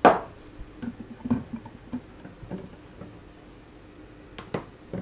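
A drinking glass set down on a kitchen worktop with a sharp knock, followed by scattered small knocks and clicks of handling. A couple of sharp clicks near the end come as the lid is pulled off the Vitamix blender jug.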